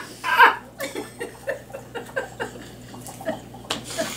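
A person's short laugh about half a second in, then quiet scattered small sounds and a sharp click near the end.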